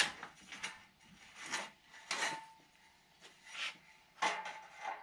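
Irregular scraping and rubbing as building material is slid and shifted into position against wooden framing, in several short strokes.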